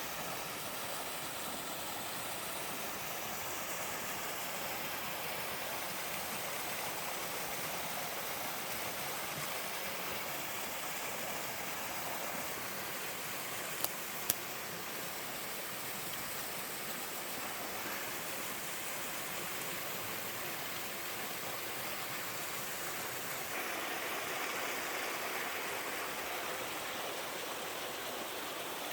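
A small mountain-stream waterfall pouring steadily, a constant rush of falling and running water. Two brief clicks come about halfway through, and the rush grows a little louder near the end.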